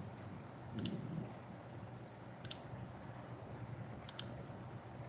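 Computer mouse double-clicks: three pairs of sharp clicks, evenly spaced about every second and a half, over a faint steady room hum.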